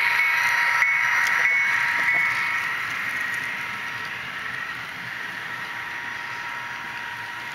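HO scale model freight train running past: the diesel locomotives go by with a steady whine that fades over the first two or three seconds, leaving the quieter, even rolling of the double-stack well cars on the track.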